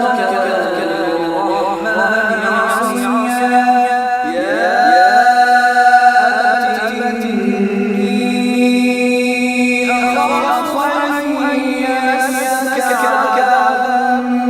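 Melodic Quran recitation by a single male reciter, chanted in long held notes that slide in pitch, with a rising glide about four seconds in.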